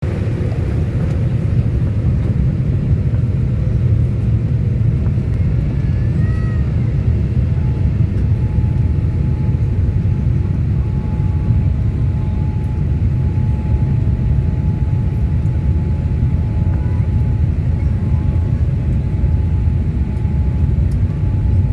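Steady low rumble of a passenger airliner, heard from inside the cabin, with a faint steady whine joining about eight seconds in.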